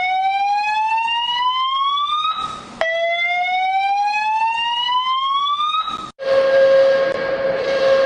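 Macao's emergency alert siren: two rising sweeps, each about two and a half seconds long, with a short burst of hiss between them. About six seconds in it breaks off and North Korea's alert starts, a steady held tone.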